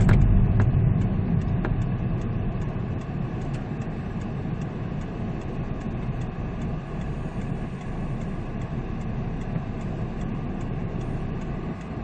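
Peugeot 207 CC's engine and road noise heard from inside the cabin. It dies down over the first couple of seconds as the car slows, then settles into a steady low hum while the car idles at a junction.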